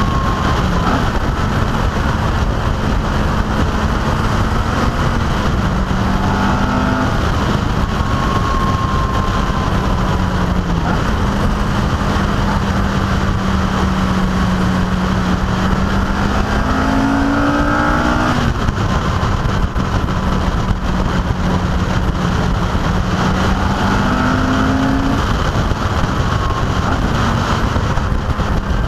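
Car engine running at road speed under a steady rush of wind and tyre noise; the engine note climbs briefly a few times as the car accelerates.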